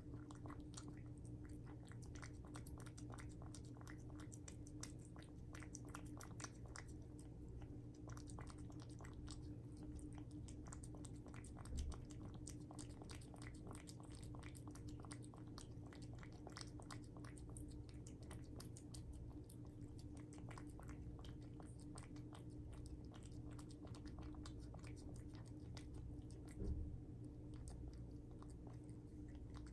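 A cat eating, a long faint run of small irregular chewing clicks over a steady low hum, with two brief soft thumps, about twelve seconds in and near the end.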